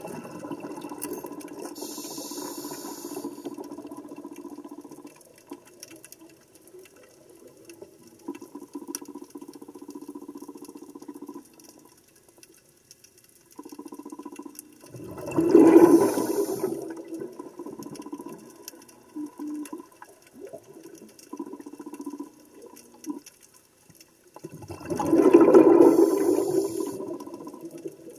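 Underwater sound: a steady low hum with two loud rushes of bubbling water, one about halfway through and one near the end, about ten seconds apart.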